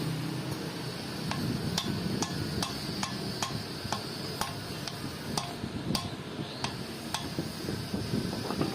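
Regular light taps or clicks, about two to three a second, over a steady low workshop hum.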